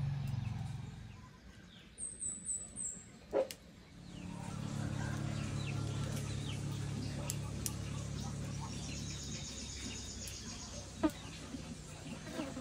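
Birds chirping: a quick run of four high chirps about two seconds in and a short high trill later. Under them runs a steady low hum, and two sharp knocks come, one about three and a half seconds in and one near the end.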